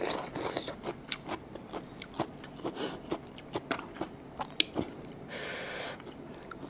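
Close-up mouth sounds of a person chewing raw blue swimmer crab meat: wet smacks and many small clicks, with a brief soft rush of noise a little past five seconds in.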